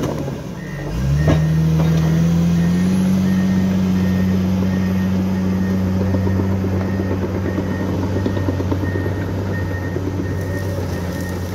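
Komatsu D61EX crawler dozer's diesel engine dipping briefly, then revving up about a second in and running steadily, while its reverse alarm beeps over and over as the dozer backs up.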